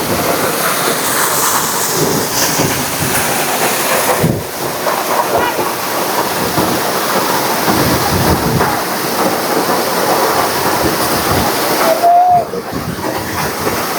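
Waterfall roaring: a loud, steady rush of falling water.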